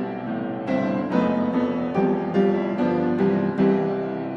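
Background piano music: single notes and chords struck about two or three times a second, each ringing and fading.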